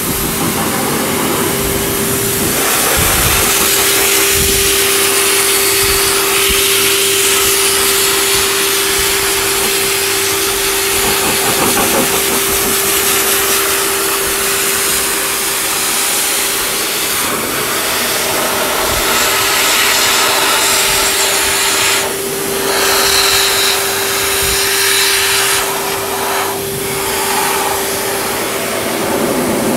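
Dog grooming dryer blowing air through a wet standard poodle's curly coat: a loud, steady rush of air over a steady hum, dipping briefly a few times in the last third as the nozzle moves over the coat.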